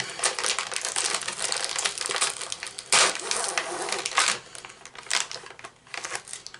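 Crinkling and crackling of a Chewy Chips Ahoy cookie package being handled and opened to take out a cookie, with a louder crunch of the wrapper about three seconds in; the rustling thins out near the end.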